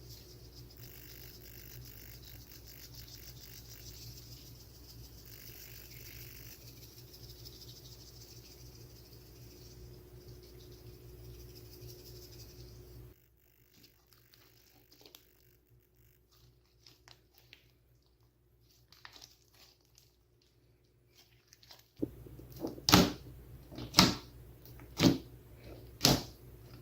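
Slime being handled: a steady run of fine crackling and clicking that stops about halfway, then scattered soft clicks, and near the end five loud pops about a second apart.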